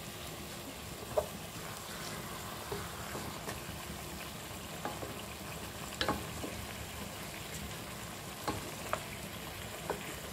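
Marinated tandoori chicken pieces sizzling steadily in oil and their own released juices in a nonstick saucepan. A spatula turns the pieces, knocking and scraping against the pan about seven times.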